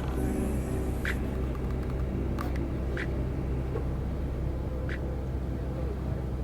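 Steady low hum of an idling car engine, with a few brief high chirps about one, three and five seconds in.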